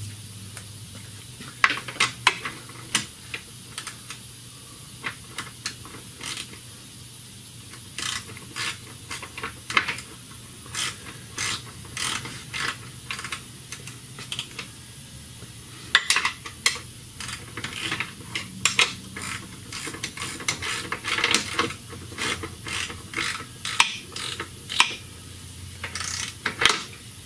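A hand ratchet clicking in short irregular runs with pauses, working bolts on the underside of the car.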